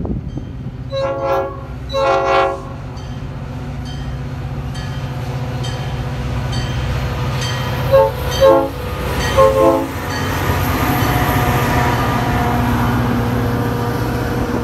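Metra diesel locomotive sounding its horn in two short blasts, then three more short blasts several seconds later, while its engine drones and grows louder as it comes near. Faint bell ringing at an even pace runs under it, and after the last blasts the locomotive and bi-level coaches rush past.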